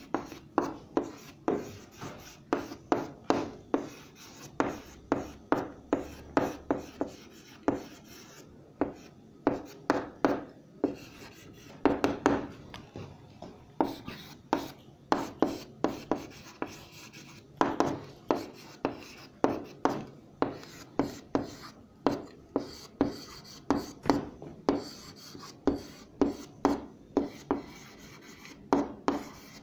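Handwriting: a writing tool striking and scraping the writing surface in quick sharp strokes, several a second, in runs broken by brief pauses.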